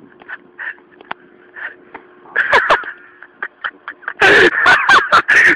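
Loud bursts of a person's voice, briefly about two and a half seconds in and again for over a second near the end, over a faint steady hum; a single sharp click about a second in.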